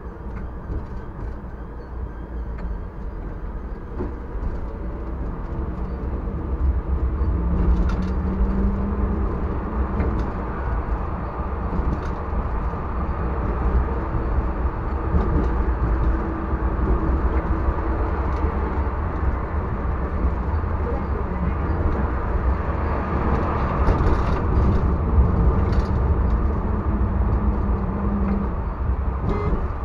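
TW6000 tram running along the street track, a steady low rumble that grows louder over the first several seconds as it picks up speed, with a faint hum coming and going.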